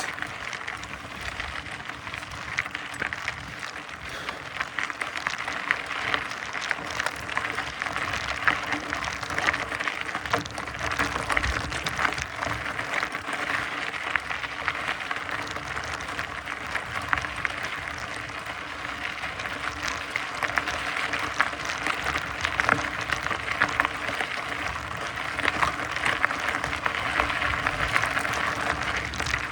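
Mountain bike tyres rolling over a dirt and gravel trail: a steady crackling rustle dotted with many small ticks and pops.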